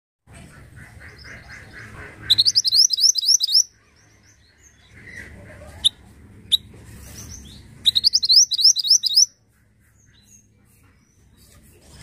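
Male minivet (mantenan) singing: two fast runs of rapid, rising, high-pitched notes, each about a second and a half long, with two short sharp single notes between them.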